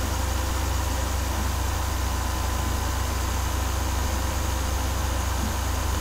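Steady low electrical hum with an even hiss over it and a faint steady high tone: the background noise of the narration recording, unchanging throughout.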